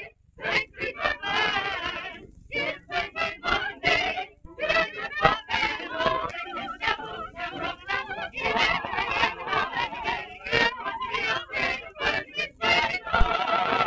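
Mixed choir singing a fast song in rapid syllables, the voices wavering with vibrato, on an early sound-film recording. A sharp pop comes near the end.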